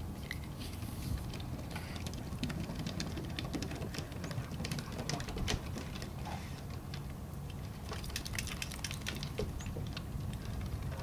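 Scattered light clicks and taps, in irregular runs, over a low steady rumble.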